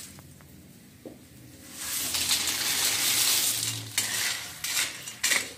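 A colander of freshwater snails (tutut) is tipped into a wok of boiling broth. About two seconds in there is a rush of hissing and rattling as the shells pour into the liquid. It is followed by a few clinks and knocks of shells and a metal spatula against the wok.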